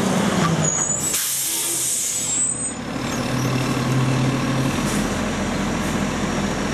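Garbage truck's engine running as it draws to a stop, with a sharp air-brake hiss about a second in that lasts about a second and a half, then the engine idling steadily.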